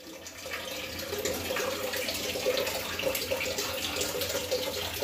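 Steady splashing, hissing water noise, rising over the first second.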